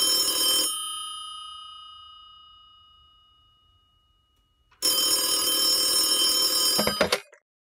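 Rotary desk telephone's bell ringing: one ring that slowly dies away over a few seconds, then a second ring that is cut off by a clatter as the receiver is lifted, just before the end.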